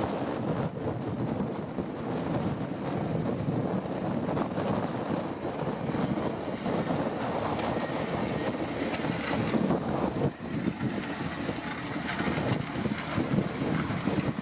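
Strong wind buffeting the microphone, over the steady running of a Fendt 714 tractor working in the field.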